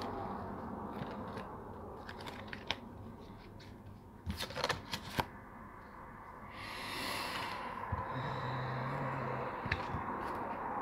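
Playing cards being handled and shuffled by hand: scattered clicks, a quick run of sharp snaps about four seconds in, then a brief riffling swish, over a steady background hiss.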